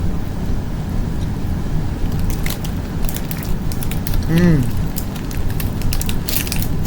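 A person chewing a s'mores-flavoured snack, with scattered crackling clicks, and a short hummed 'mm' about four and a half seconds in.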